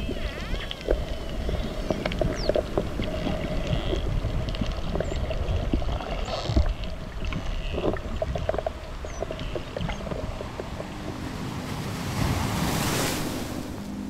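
Underwater sound of bottlenose dolphins: scattered sharp clicks and a few faint high whistles over a steady low hum. A rush of noise swells about a second before the end.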